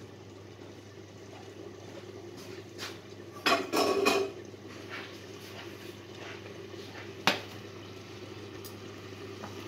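Stainless steel saucepans clattering against each other and the glass top of an induction hob as they are moved and set down, with a cluster of clanks about three and a half seconds in and one sharp clink near the end, over a steady low hum.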